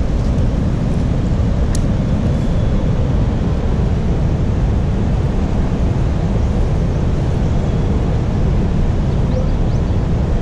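Wind buffeting the microphone: a steady, low rumbling roar that holds level throughout.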